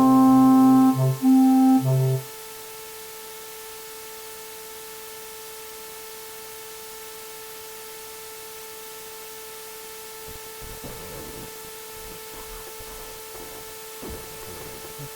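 A few keyboard notes end a short electronic piano tune about two seconds in. After that a steady, fainter electronic tone hums on unchanged.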